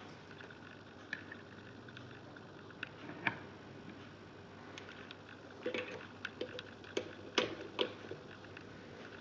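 Scattered light clicks and taps of multimeter test leads and circuit connectors being handled and plugged in, a few early on and a busier run of clicks in the second half.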